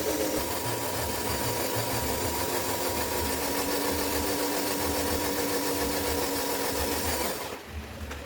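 A small electric motor whirring steadily with a constant pitch, then cutting off suddenly about seven and a half seconds in.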